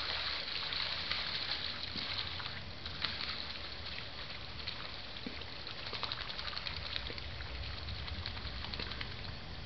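Splashing of a flock of red-breasted merganser young pattering across the lake surface: a continuous crackling hiss of many small splashes, over a low rumble.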